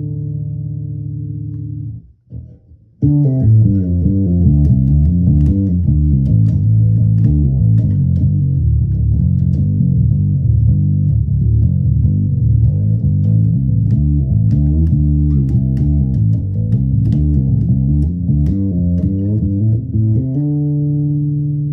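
30-inch short-scale five-string fretless electric bass played fingerstyle. A held note rings and is cut off about two seconds in, then a steady run of quick plucked notes follows, ending on a long sustained note near the end.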